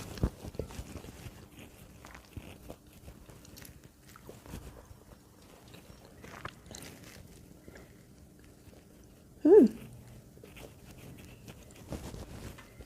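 Close-up chewing and small crunches of a pandan mooncake studded with melon seeds. About nine and a half seconds in, a short loud 'mm' from the eater's voice.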